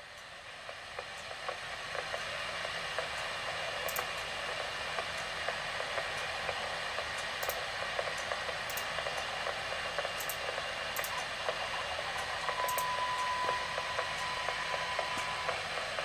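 Weather radio receiver giving off steady static hiss with faint crackles and ticks, the sign that the station's broadcast has dropped off the air. A faint steady tone comes in for a few seconds near the end.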